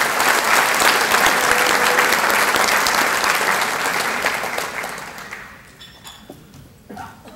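Audience applauding, which dies away about five to six seconds in.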